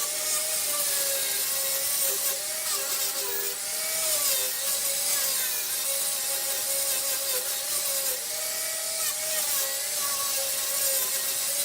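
Wood lathe running while a turning tool cuts the spinning wood: a steady high hiss of cutting over a whine that wavers a little in pitch.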